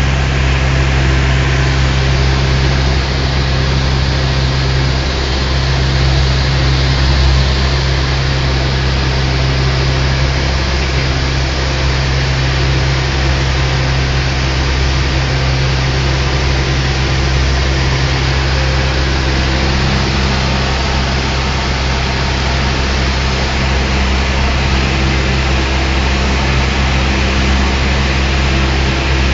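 Cessna 172's piston engine and propeller running steadily, a constant low drone with a broad rushing noise over it.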